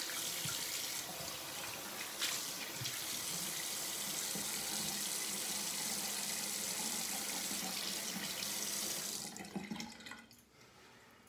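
Bathroom sink tap running steadily as a shaving mug is rinsed out under it, with a short knock about two seconds in. The water is shut off a little after nine seconds and dies away.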